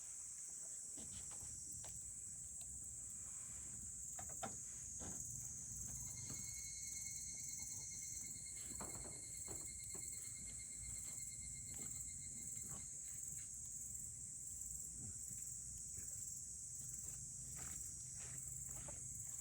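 Campfire crackling with scattered small pops over a steady high-pitched chorus of crickets or other insects. A faint thin whistle sounds from about six to thirteen seconds in.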